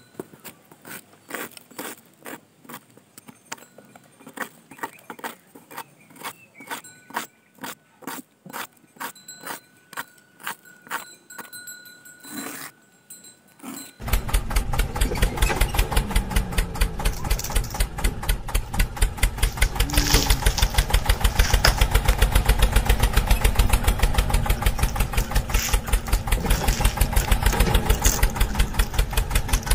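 Scattered light clicks and taps of small toy parts being handled. Then, about halfway in, the miniature DIY model tractor's engine sound starts abruptly: a loud, fast, even pulsing that runs on steadily.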